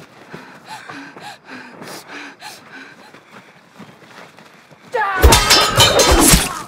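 Dubbed fight sound effects. The first seconds hold only faint short sounds. About five seconds in comes a loud flurry of hits and crashes under a falling yell, lasting about a second and a half.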